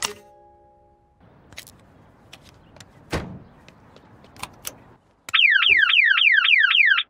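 Cartoon car alarm going off: a loud, fast falling whoop, about five a second, that starts suddenly about five seconds in and cuts off abruptly near the end. Before it there are a few light clicks and a single thud over faint hiss.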